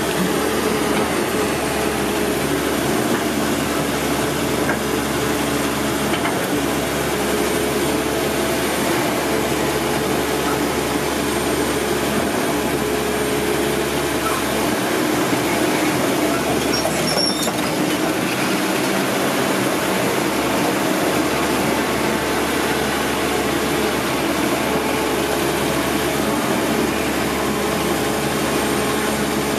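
CAT 320D2 hydraulic excavator working, its diesel engine running steadily together with the machine's mechanical noise.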